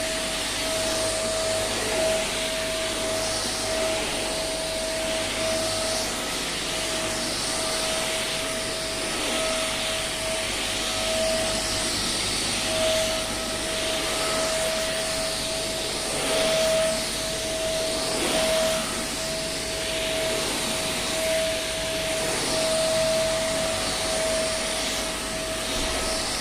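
Vacuum cleaner running steadily: a constant high motor whine over the rush of air, swelling and easing slightly now and then.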